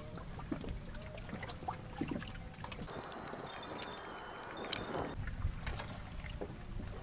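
Water trickling and lapping around a floating bamboo fishing raft, with small clicks and knocks from handling fishing gear. A soft rushing noise rises for about two seconds midway.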